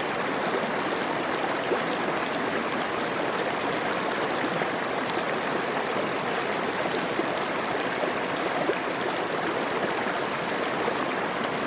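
Small mountain creek running over rocks: a steady rush of water.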